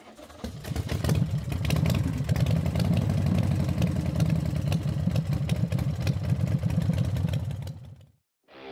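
Motorcycle engine running steadily with a fast, even beat, coming in over the first second and cutting off abruptly about a second before the end.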